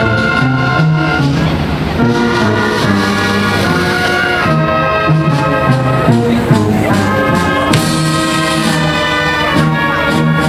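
Brass-led band music playing loudly, a melody of held notes changing every second or so.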